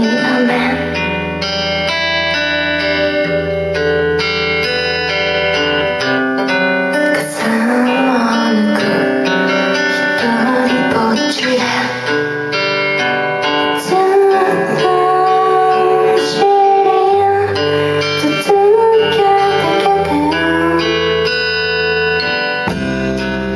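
Band music led by guitars over held bass notes, with a wavering melody line in the middle of the passage.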